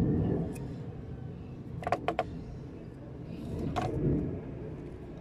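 A metal paint can and a wooden stirring stick handled over a paint tray as primer is scraped out, giving a few short sharp clicks about two seconds in and another near four seconds, over a steady low rumble.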